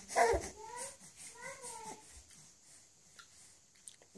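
Baby vocalizing: one loud squeal, then two shorter coos whose pitch rises and falls, all in the first two seconds.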